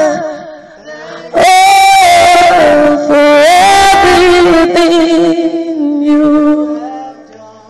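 A woman singing a slow gospel worship song without words caught by the transcript, holding long notes. There is a short break about a second in, and the singing fades out near the end.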